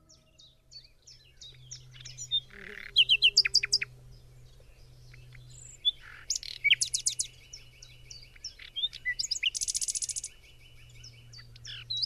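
A songbird singing a varied song of short whistled and sweeping notes, with loud rapid phrases about three and six seconds in and a fast trill near ten seconds.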